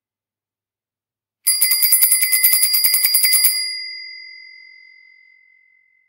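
Bicycle bell rung rapidly, about ten strikes a second for two seconds, starting about a second and a half in. A single clear, high ring then fades out slowly.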